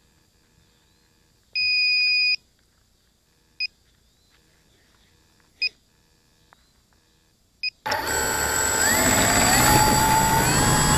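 A tricopter's KK2 flight-controller buzzer beeps, one long beep and then three short beeps about two seconds apart. About eight seconds in, its brushless motors spin up to a loud whir, with several whines rising in pitch as the throttle comes up for takeoff.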